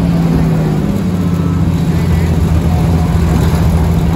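Steady low drone of a vehicle's engine and road noise, heard from a vehicle moving through city traffic.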